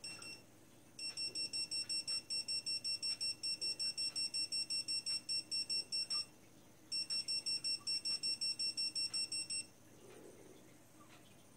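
Dogtrace D-fence 1001 electronic dog-fence collar receiver beeping rapidly, about five high beeps a second, in a run of about five seconds, a short break, then a run of about three seconds. The fast beeping is the collar's warning-zone signal as it sits near the boundary wire.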